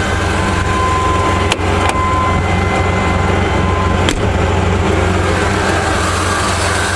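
1995 Chevrolet S10's engine idling steadily while still cold, with no squeal: its vacuum leak, from a bad TBI base gasket, only squeals once it is warm. A thin steady tone fades out about two seconds in, and there are two sharp clicks.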